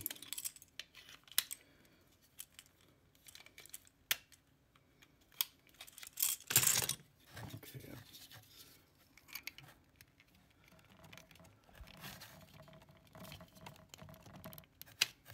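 Scattered light clicks and scrapes of a padlock shim being worked in beside the shackle of a plastic toy learning padlock, with a louder scratchy rustle about six and a half seconds in. This is the shim attack on the lock, which turns out to open it.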